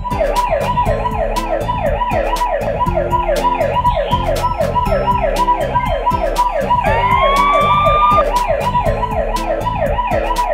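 Electronic alarm siren sounding a rapid, even run of falling whoops, about three a second. A single rising tone cuts in about seven seconds in and holds for about a second.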